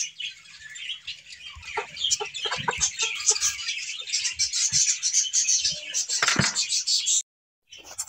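Caged birds chirping rapidly and continuously in a high register, with a few knocks from a wire cage and its plastic base being handled. The sound cuts out briefly near the end.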